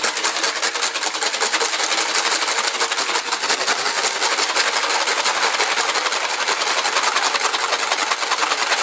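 Wire balloon whisk beating raw eggs in a stainless steel bowl, the wires clattering and scraping against the metal in a fast, steady rhythm.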